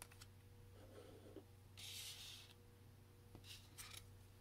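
Faint handling of Pokemon trading cards: a short papery slide about two seconds in and a few light ticks afterwards, over a steady low hum.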